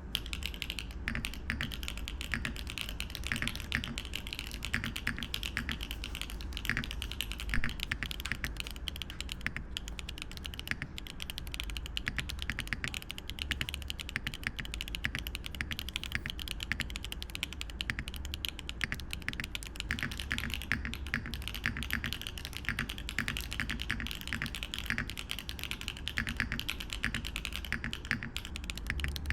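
Continuous fast typing on a mechanical keyboard with HMX Hydra tactile switches and GoMaster Winter Breath keycaps: a dense, steady run of keystrokes, with one louder strike about seven and a half seconds in.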